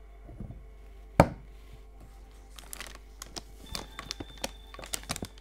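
Perfume bottle cap set back on the bottle with one sharp click about a second in, followed by a run of small taps and knocks as the bottle and its rigid presentation box are handled. Faint background music plays throughout.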